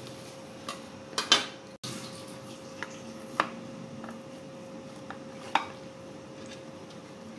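Kitchen knife cutting a soft barfi in a metal tray, the blade clicking and knocking against the tray's bottom and sides with scattered sharp taps, the loudest about a second in. A faint steady hum runs underneath.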